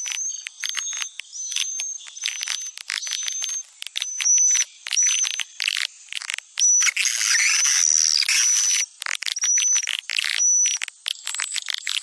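Swiftlet lure call of the Sumatran style: a recording of edible-nest swiftlets twittering, fast chirps and clicks with a short high whistle repeated about once a second. It is the sound played to draw swiftlets into a nest house.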